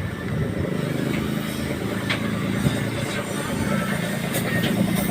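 Diesel truck engine idling with a steady low rumble and a faint even beat, with a few short clicks over it.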